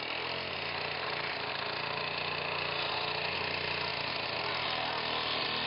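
Circular saw running steadily as it cuts into a washing machine's drum.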